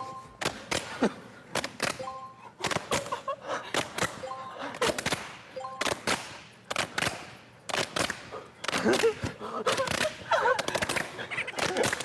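A rapid series of hand claps and slaps keeping a beat in a group rhythm game, with voices calling out over the claps in the last few seconds.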